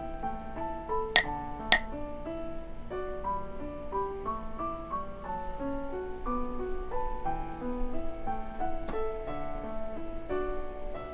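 Light instrumental background music with a steady melody. About a second in, two sharp clinks half a second apart: a metal spoon tapping the steamed-egg dish.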